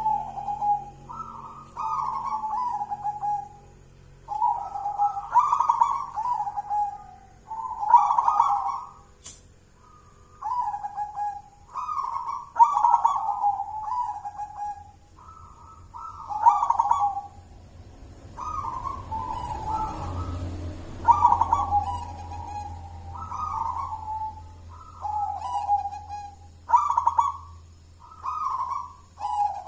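Zebra dove (perkutut) cooing its song over and over, a contest-style 'gacor' bird in full voice. Each phrase is a short higher note dropping to a longer, lower coo, repeated about every one to two seconds.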